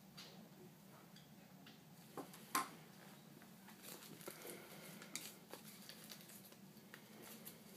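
Faint handling sounds of gloved hands working plastic IV equipment: soft rustles and a few small clicks, one sharper click about two and a half seconds in.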